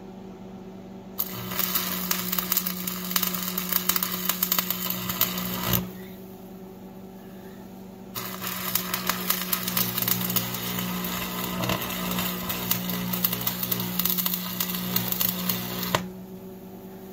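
Stick-welding arc crackling and sizzling in two runs, the first about four and a half seconds, the second about eight seconds, with a short break between, as a bead is laid on the snowplow's pin mount. A steady low hum runs underneath.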